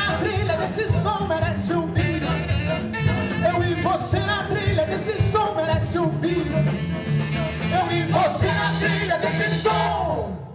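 Live band playing with lead and backing singers: electric guitar, double bass, drums and keyboards in the song's closing bars. The music stops abruptly just before the end, closing out the song.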